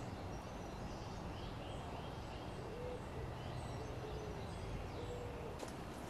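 Quiet woodland ambience: faint birds calling, with scattered high chirps and two short, low, steady calls about halfway through and near the end, over a faint low rumble.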